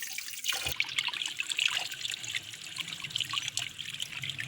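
Tap water trickling and splashing over fish heads being rinsed clean by hand in a sink, with a brief knock under a second in.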